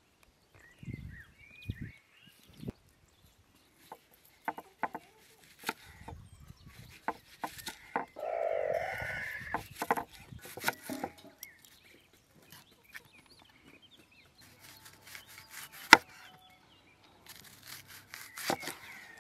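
Kitchen knife slicing tomatoes and a red onion on a thick wooden cutting board, the blade knocking sharply and irregularly on the wood. A rooster clucks now and then.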